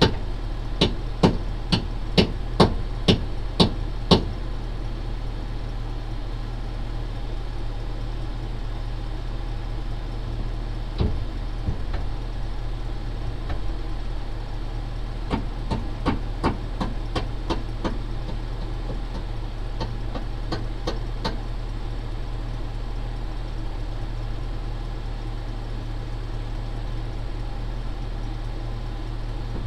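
Pickup truck engine idling steadily. Over it come a quick run of sharp knocks, about two a second, in the first four seconds, then scattered knocks and clanks around the middle.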